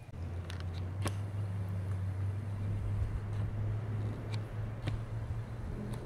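A steady low mechanical hum, like a motor or engine running, starts just after the beginning and holds an even pitch throughout, with a few faint clicks.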